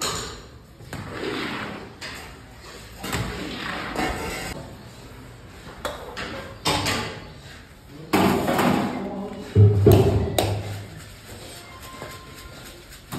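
People talking amid a series of sharp knocks and heavy thumps, the loudest about ten seconds in.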